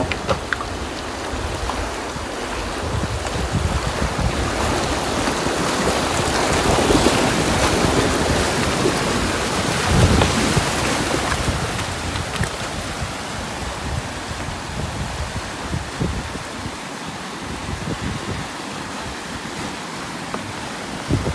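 Fast-flowing river rushing over rocks in a steady roar of water, with wind noise on the microphone.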